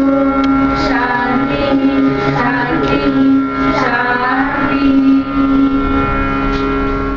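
Indian devotional-style music: singing with gliding pitch over a steady sustained drone, ending abruptly at the end.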